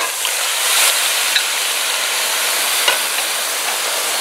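Steady sizzling from brown sugar melted and caramelizing in a hot pot, as a wooden spoon stirs it and raw pork cubes go in, with a couple of light knocks.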